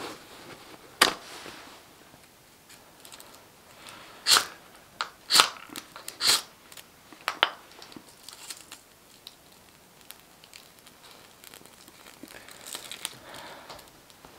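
A steel knife scraping birch bark tinder: about six short, sharp scrapes in the first half, then fainter crackling near the end.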